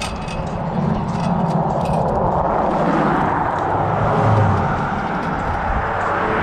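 Road traffic passing close by: tyre and engine noise that swells over the first few seconds and then holds steady, with a low engine hum underneath.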